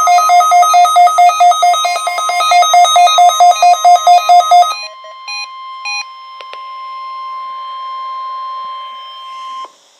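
Weather radio receivers beeping a rapid, loud pulsed alert, then from about halfway through the NOAA Weather Radio 1050 Hz warning alarm tone held steady until it cuts off suddenly near the end. This is the weekly test activating the receivers.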